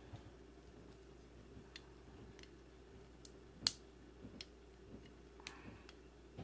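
Faint, scattered clicks of hard plastic parts on a Transformers Grimlock toy figure being worked by hand, about ten small clicks, one sharp louder snap about three and a half seconds in.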